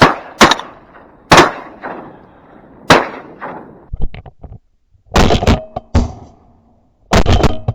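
Shotgun shots at incoming ducks: three sharp cracks about a second apart, each with a fading tail. Several loud rattling knocks follow in the second half.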